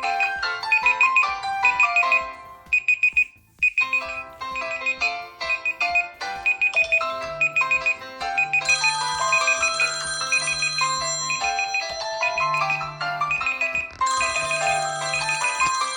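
Electronic smartphone ringtones and alarm melodies play with several tones sounding at once: a repeating high beep over a melody. The sound drops out briefly about three and a half seconds in, and more tones and a low pulsing note join from about eight seconds in.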